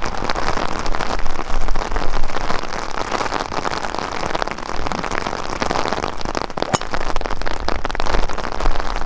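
Rain falling, a dense steady patter of drops close to the microphone, with one sharp click about three-quarters of the way through.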